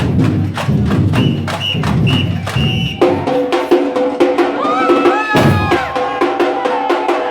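Loud music with a steady percussion beat, which changes abruptly about three seconds in to a different piece with held notes.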